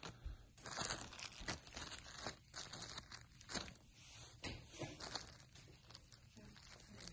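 Plastic packaging crinkling as an anti-static bag and bubble wrap are handled: short, irregular rustles.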